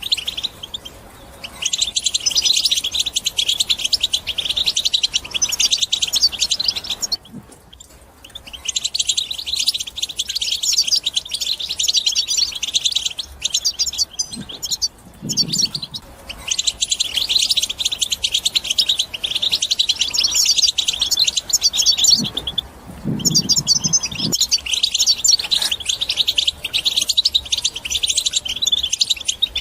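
European goldfinch singing in long runs of rapid, twittering song, broken by short pauses about a quarter of the way in, about halfway, and again about three quarters of the way through.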